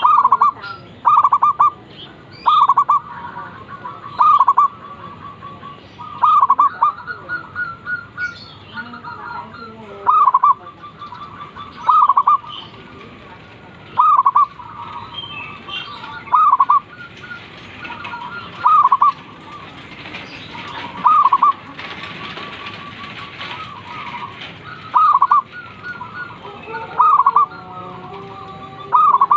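Zebra doves calling: a loud, short cooing note about every two seconds, with quieter quick strings of coos between them at the same pitch.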